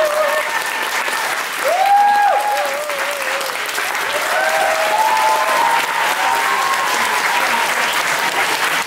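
Audience clapping steadily, with a few people calling out over it; the loudest call comes about two seconds in.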